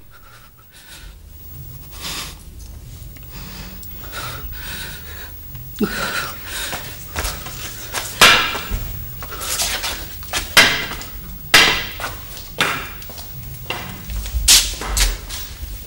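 A scuffle in a small room: a run of about a dozen sharp knocks and thuds, starting about six seconds in, over a low hum.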